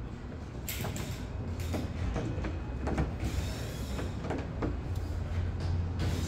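Steady low mechanical rumble in a car-repair shop, with a string of short clanks and knocks every half second or so.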